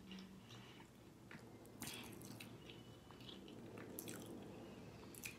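Faint close-up mouth sounds of someone chewing food, with a few wet clicks and smacks, the clearest about two and four seconds in.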